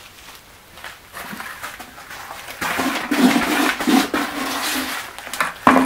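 Wet, gritty scraping and rustling of coarse pumice concrete being handled with gloved hands. It grows loud in the second half, with a sharp knock near the end.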